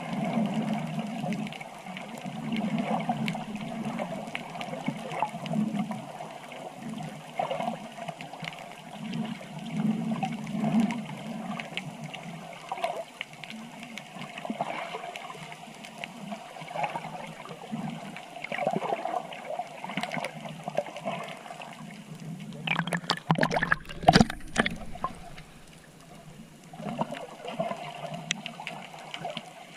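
Water sloshing and gurgling in uneven swells, with a brief louder rumbling disturbance about three-quarters of the way through.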